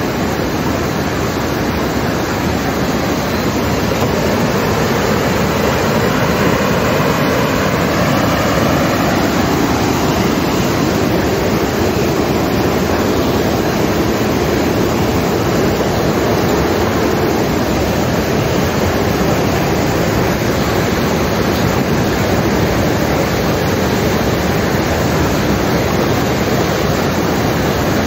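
Steady, loud rush of flowing water, even and unbroken throughout.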